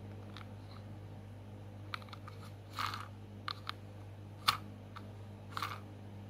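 Hard plastic clicking and scraping as a plastic toy truck is handled and turned over in the hands: a handful of separate knocks and short rubs, the sharpest about four and a half seconds in, over a steady low hum.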